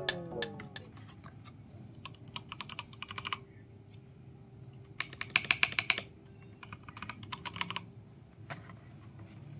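Typing on an EvoFox Ronin TKL mechanical keyboard with red linear switches: three short bursts of rapid key clicks with pauses between them, and a few single keystrokes near the end.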